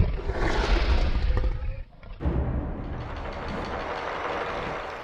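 Opening sound effect: a boom, then heavy rumbling noise that drops away briefly near two seconds in, returns and cuts off suddenly at the end.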